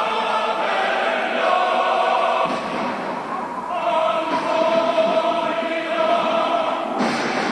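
Dramatic film-trailer music led by a choir singing long held notes.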